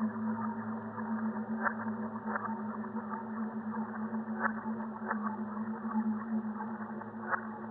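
Sci-fi alien ambience sound effect: a steady low droning hum made of several held tones, with scattered short crackles over it.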